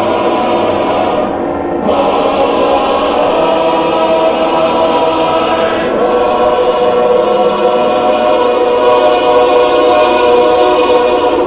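Choir music: voices holding long sustained chords that shift about two seconds in and again around six seconds in.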